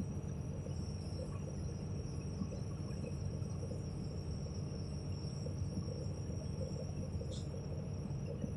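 Excavator engine idling with a steady low hum while the machine holds a suspended pulley still, and a thin steady high-pitched whine over it.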